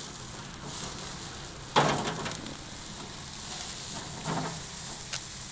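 Chicken legs sizzling and crackling over the open flames of a grill, fat dripping into the fire. A sudden loud burst about two seconds in, and a smaller one near the end.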